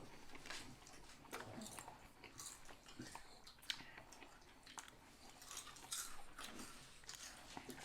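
Faint chewing and biting of a sub sandwich close to the microphone: scattered soft clicks and crunches of bread and fillings.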